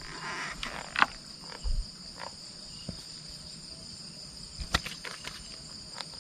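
Steady high-pitched chirring of night insects such as crickets, with a few scattered sharp clicks and knocks, the loudest about a second in and again just before five seconds.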